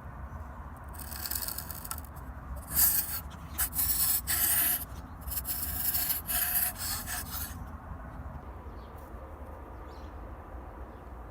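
Hand abrasive work on an old pocket knife: a run of rubbing, scraping strokes from about one second in to near eight seconds, then only a low steady hum.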